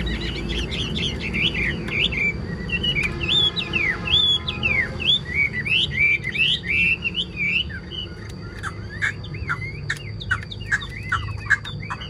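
Chinese hwamei singing: a rapid, varied run of loud whistled notes sliding up and down. After a brief pause about two-thirds of the way in, it switches to a quicker series of short falling notes.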